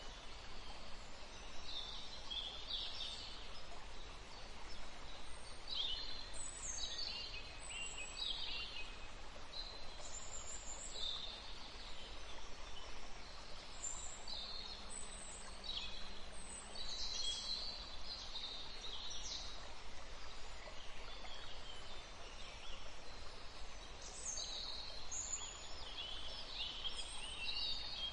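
Small birds chirping and twittering in many short calls over a steady hiss of outdoor ambience.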